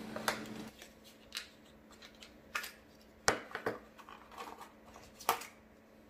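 Handling of a Zippo lighter insert's box and cardboard packaging: scattered soft rustles and scrapes with a few sharp clicks, the loudest about three and a quarter and five and a quarter seconds in.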